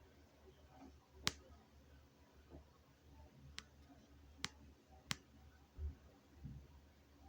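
Near silence with a faint low hum, broken by four sharp, isolated clicks spread over a few seconds and a couple of soft low thumps near the end.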